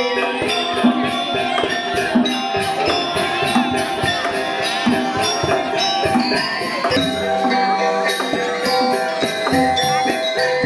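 Balinese gamelan music: metallophone notes ringing over a dense, steady rhythm of struck percussion.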